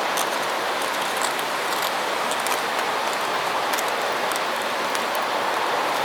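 Steady rush of a swollen river close by, with small sharp crackles and pops from a newly lit fire of tinder and feather sticks catching.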